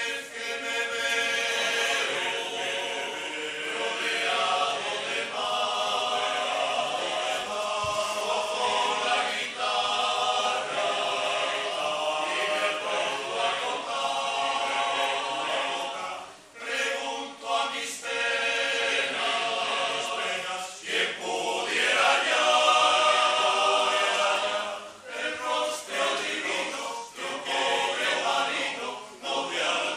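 A choir singing a cappella, holding chords in several parts, with short pauses between phrases about 16, 21 and 25 seconds in.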